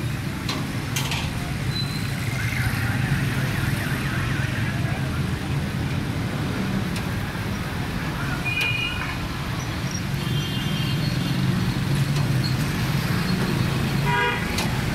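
Steady low rumble of road traffic and engines. Short high beeps like vehicle horns sound about 8 to 9 seconds in, again around 10 to 11 seconds, and most clearly just before the end.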